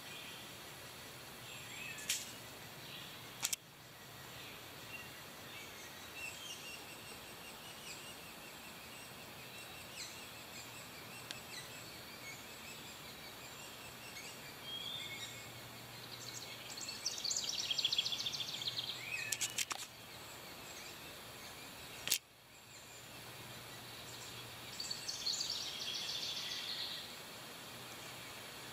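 Yellow-bellied sapsucker nestlings calling from the nest cavity, with thin calls running on throughout. Twice, about two-thirds of the way in and again near the end, the calling swells into loud, rapid begging: young being fed as a parent comes to the hole. A few sharp clicks are heard as well.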